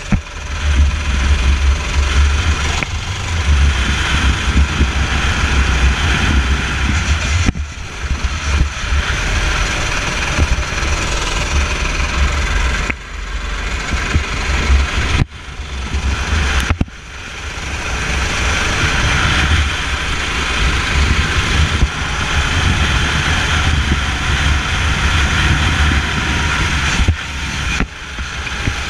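Go-kart engine running hard at racing speed, heard onboard, with the sound dropping away sharply several times as the throttle lifts for corners.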